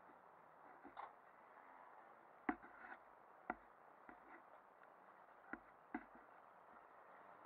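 Near silence broken by a handful of short, sharp knocks and clicks at irregular spacing, the loudest about two and a half seconds in.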